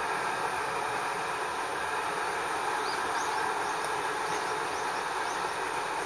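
A steady rushing background noise, with five or six short, high chirps from a small bird in the blossoms about halfway through.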